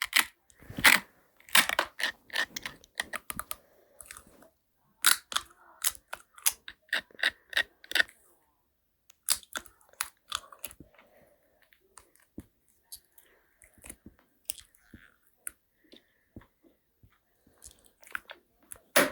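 Close-miked eating: crisp, crackly bites and chewing, coming in dense clusters for the first eight seconds and sparser after that.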